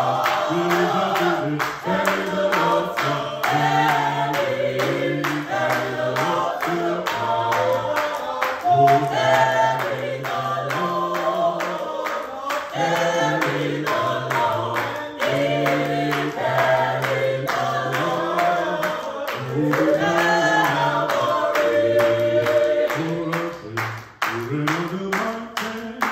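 Gospel choir of men and women singing a hymn in parts, a low bass line under higher voices, over a steady beat of sharp strokes. The singing eases briefly near the end.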